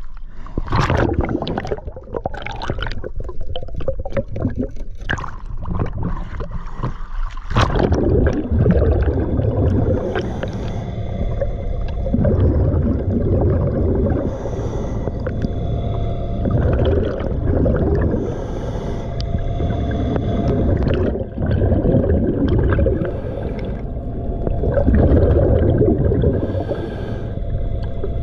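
Underwater sound of a scuba diver breathing through a regulator: the bubbling of exhaled air swells and fades every few seconds. Over the first several seconds there are scattered sharp clicks and crackles.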